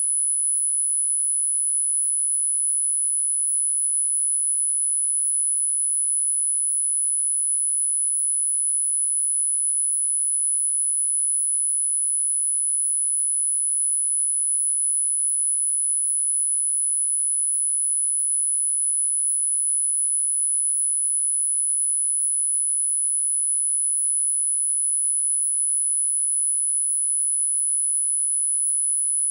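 A single electronically generated sine tone, very high-pitched, held steady and unchanging.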